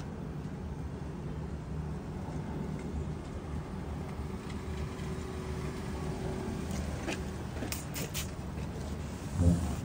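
A few quick spritzes from a trigger spray bottle about eight seconds in, misting cleaner onto the car's interior door panel, over a steady low drone. A single low thump near the end is the loudest sound.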